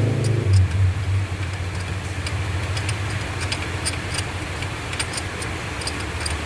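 Honda CR-V engine idling steadily after easing down from a higher speed about half a second in, with scattered sharp clicks over it.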